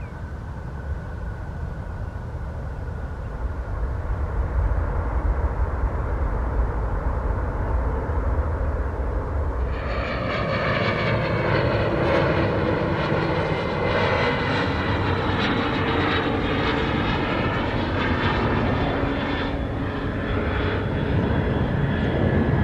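A distant jet airliner's engines, a low rumble that slowly grows louder. About ten seconds in this gives way to a Cessna 525A CitationJet CJ2 on final approach with gear down: its twin turbofans make a high whine of several tones, some bending down in pitch as it flies past.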